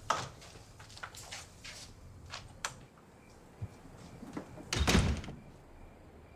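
Several clicks and knocks, then a heavy door shutting with a thud about five seconds in. Faint steady cricket chirping behind.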